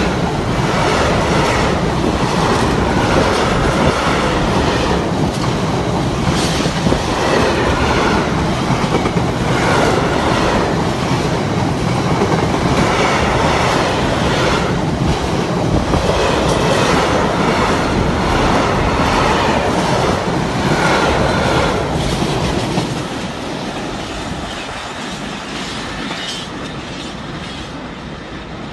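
Freight train of bogie oil tank wagons rolling past close by: steady rumble of steel wheels on rail with rhythmic clickety-clack and now and then a short wheel squeal. About 22 seconds in, the last wagons pass and the sound fades as the train draws away.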